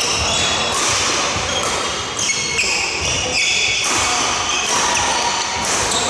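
Badminton doubles rally: rackets hit the shuttlecock with sharp cracks about once a second. Many short squeaks come from court shoes on the wooden floor between the hits.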